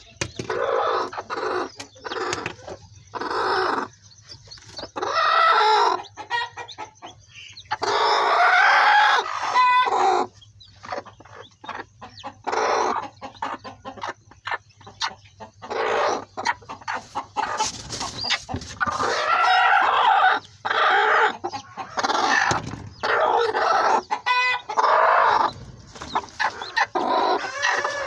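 Aseel chickens clucking and calling over and over, with longer drawn-out calls about eight seconds in and again around twenty seconds.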